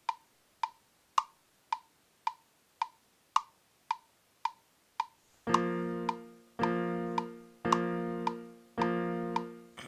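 Instrumental beat intro: a woody tick about twice a second. About halfway through, sustained keyboard chords come in, struck about once a second over the ticks.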